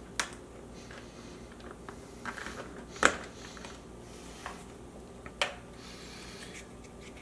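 A few sharp plastic clicks and taps as a Nest thermostat's display is handled and pulled off its wall base, the loudest about three seconds in, over faint room hum.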